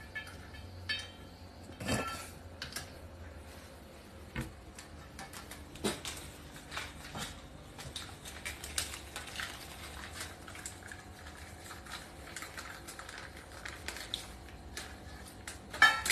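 Irregular light clicks, taps and clatter of small hard objects, with a louder knock about two seconds in and another near the end.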